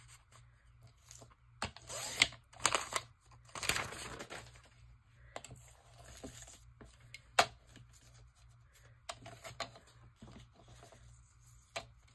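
Sliding paper trimmer cutting a glossy magazine page, several quick scraping slices in the first few seconds, then paper rustling and a few sharp taps as the cut strips are handled.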